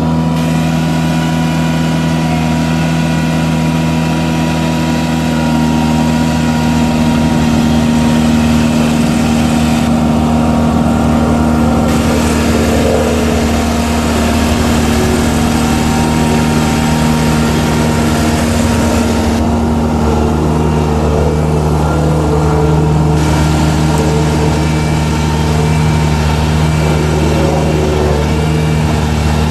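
A 2007 Ingersoll Rand SD77-DXTF roller's Cummins B4.5T four-cylinder turbo diesel running steadily as the machine drives slowly, with a hiss over the top that drops away briefly twice.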